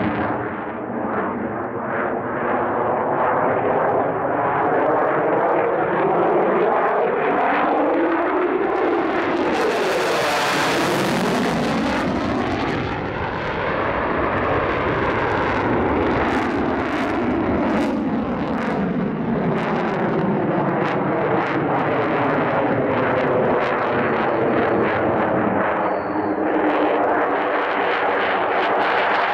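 F-16 fighter jet's engine running loud and continuous through a display manoeuvre, with a slow sweeping shift in tone as the jet moves across the sky. A bright hissing surge comes about ten seconds in, followed by a rasping crackle for several seconds.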